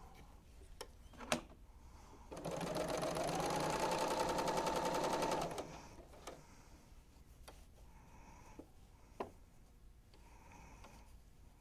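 Serger stitching through a seam for about three seconds, starting a couple of seconds in: it speeds up quickly, runs at a steady fast rate, then stops. A few faint clicks come before and after it.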